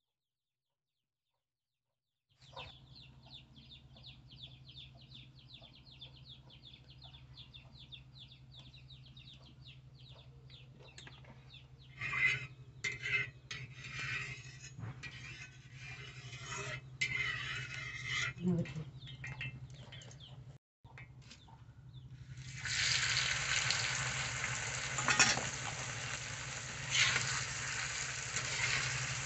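A metal spatula scrapes and taps a black iron pan as it spreads heating oil. About twenty-two seconds in, shrimp go into the hot oil and a loud frying sizzle starts, with the spatula stirring through it.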